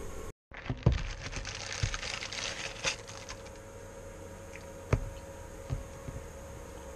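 Clicks, taps and rattles of a coiled BNC-to-alligator-clip test cable and its metal clips being handled. The clicking is busiest over the first three seconds, with a sharper knock about a second in, then thins to a few single knocks around five and six seconds.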